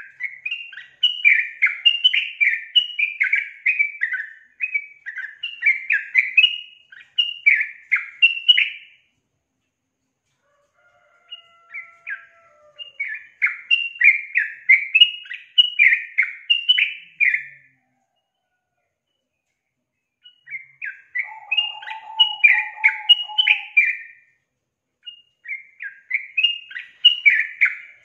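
Yellow-vented bulbul (trucukan), a female, singing four runs of rapid bubbly chattering notes separated by short pauses, with a lower buzzy note under the third run. This is a female's song of the kind used as a lure to set males singing.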